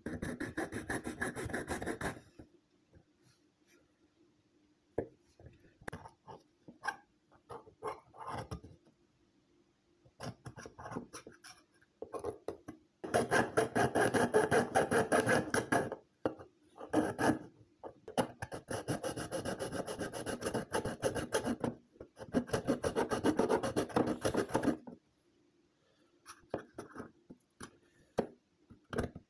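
A thin metal blade sawing through the neck of a plastic PET bottle, just under the collar, in sped-up footage: rapid back-and-forth scraping strokes. The strokes come in four bursts, with short pauses of scattered scrapes between them.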